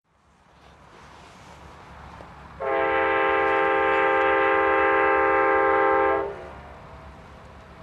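Amtrak GE P42DC locomotive's air horn sounding one long, loud chord blast of about three and a half seconds, with a steady low rumble underneath.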